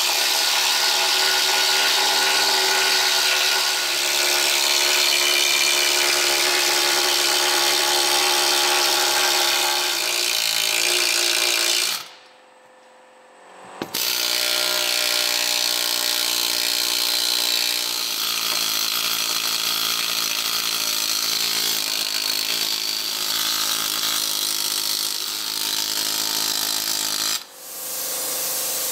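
Pneumatic needle gun (needle scaler) working rusty, painted chassis steel back to bare metal: a loud, steady buzz that pauses for about two seconds near the middle and cuts off near the end.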